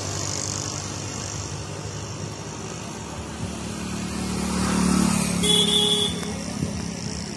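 Road traffic passing close by. One vehicle goes past, loudest about five seconds in, and gives a short horn toot near the peak of its pass.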